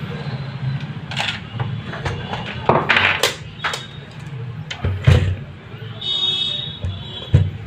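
Scattered clicks and knocks of tools handled on a repair bench. About six seconds in there is a brief high beep, a multimeter's continuity buzzer showing the battery connector's plus point shorted to ground.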